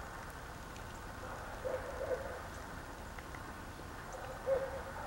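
Faint, low cooing or hooting bird calls: two short notes close together about two seconds in and a louder single note near the end, over a quiet steady outdoor background.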